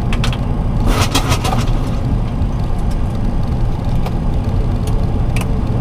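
Steady low rumble of cockpit noise in a Boeing 737 taxiing with its engines at idle. A short cluster of sharp clicks comes about a second in.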